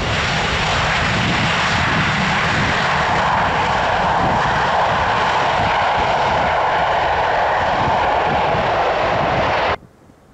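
Airliner's engines running loud and steady as the plane passes close by, a faint whine running through the noise. It cuts off abruptly near the end.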